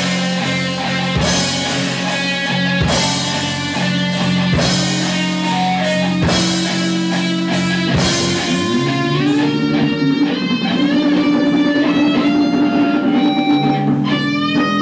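Rock band playing live: electric guitars, bass and a Yamaha drum kit with cymbal crashes. About nine seconds in the drums stop and the guitars ring on with held, bending notes, the closing bars of a song.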